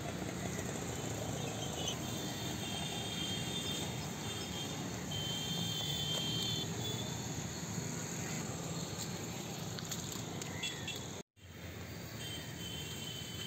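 Outdoor ambience: a high chirping trill comes and goes in stretches over a steady low rumble, with a few faint ticks. The sound cuts out completely for a moment about eleven seconds in.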